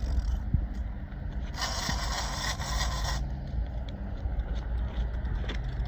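Fishing reel drag paying out line in a rasping burst of about a second and a half, with a shark hooked and running. A steady low rumble sits underneath throughout.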